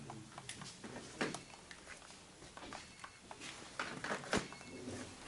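Scattered clicks and knocks of hand tools and fasteners against metal while suspension bolts are worked loose, with two sharper knocks about a second in and a little past four seconds.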